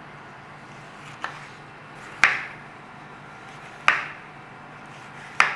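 Kitchen knife slicing bell peppers, the blade knocking down onto a chopping board four times about a second and a half apart, the first one soft. Under it runs the steady hum of a kitchen extractor fan.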